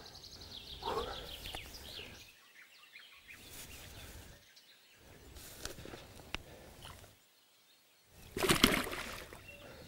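Open-air ambience with birds chirping, and intermittent rustling and water-sloshing noises from handling the catch at the water's edge, broken by a few brief silent gaps. The loudest part is a short noisy splash-like burst near the end.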